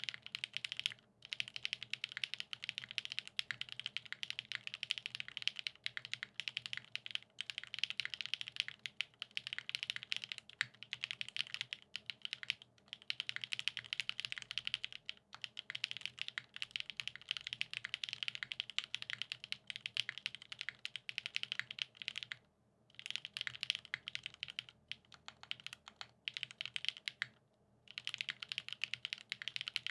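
Continuous fast typing on a TGR 910 v2 ME custom mechanical keyboard with lubed Gateron X SW Pure Berry linear switches in a top-mounted polycarbonate plate, fitted with GMK keycaps: a dense run of keystroke clacks, pausing briefly a few times.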